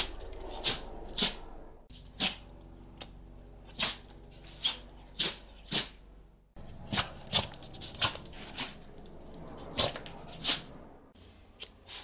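A Jack Russell terrier sneezing again and again, about fifteen short, sharp sneezes spaced half a second to a second apart, set off by a lighter pointed at its face.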